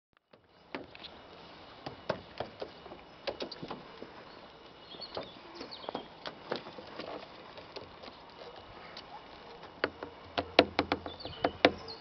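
A rook's beak and claws tapping and knocking on a car's metal roof and roof bars: scattered sharp taps, with a quicker, louder run of knocks in the last two seconds.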